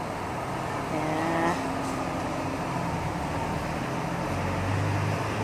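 Steady low mechanical hum over a rushing background noise, the hum growing stronger near the end, with a faint voice briefly about a second in.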